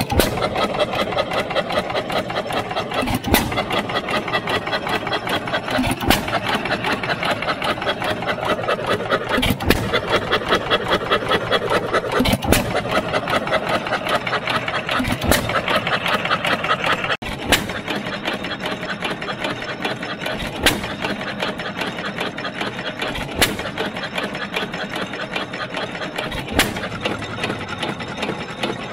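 1914 Fuller & Johnson 6 hp kerosene hit-and-miss engine running. Its mechanism clatters fast and evenly, and a single sharp firing bang comes about every three seconds as it fires and then coasts.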